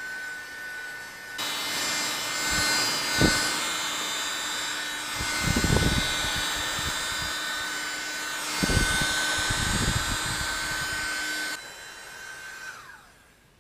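Small USB keyboard vacuum's motor whining steadily, its suction becoming a louder rushing hiss while the brush nozzle is worked over a laptop keyboard, with a few bumps and scrapes against the keys. Near the end the hiss drops away and the motor's whine falls in pitch and dies out.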